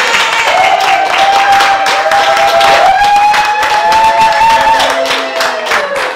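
A small audience clapping and cheering, with long held whoops from several people over the applause, in response to a marriage proposal.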